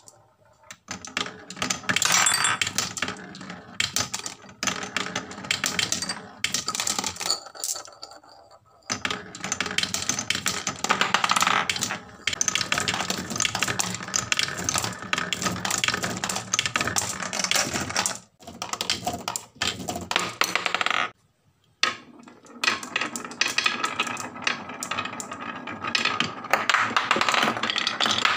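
Marbles rolling and clattering down a wooden marble run: a dense run of rattling clicks and knocks as the balls travel over the wooden tracks, with two short pauses.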